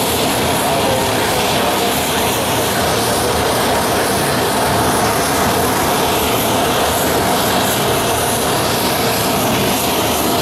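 Boeing C-17A Globemaster III's Pratt & Whitney F117 turbofan engines running steadily on the ground, a high whine over broad rushing jet noise.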